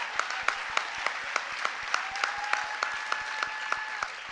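Large banquet audience applauding, a dense, steady patter of many hands clapping. About two seconds in, one held high note rises above the clapping for nearly two seconds.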